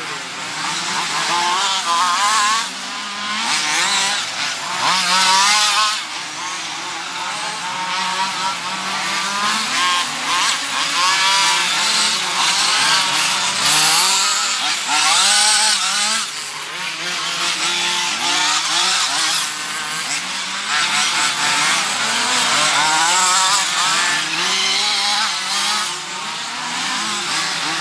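Several nitro RC off-road buggies' small two-stroke glow engines screaming together, each pitch rising and falling over and over as the cars accelerate and brake around the track.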